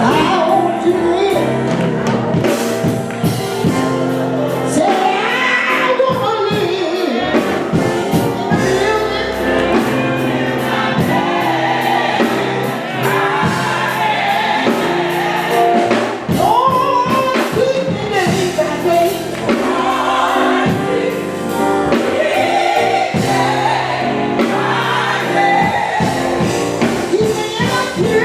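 Gospel music: a choir singing a gospel song over sustained instrumental accompaniment, steady and loud throughout.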